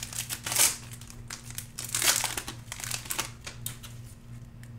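Foil wrapper of a trading-card pack crinkling and crackling as it is torn open and peeled back from the cards, in irregular bursts that die down near the end.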